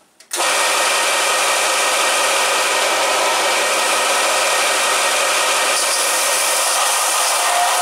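A bench belt sander starts up suddenly and runs steadily while a half-inch-thick welded stainless steel turbo flange is pressed face-down on the belt. It is sanding off layout blue to show where welding heat has warped the mating face.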